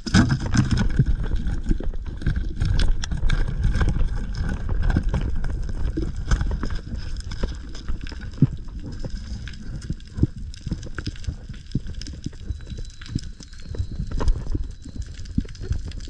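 Underwater noise of a diver struggling with a speared longtooth grouper in a rocky hole: a heavy low rumble of churning water on the camera housing, with many sharp knocks and clicks scattered through it. It starts abruptly.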